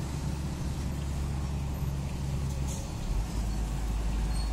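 Diesel engine of a large crawler bulldozer running steadily as it works a sand pile, a deep drone whose lowest note drops and grows stronger about three seconds in.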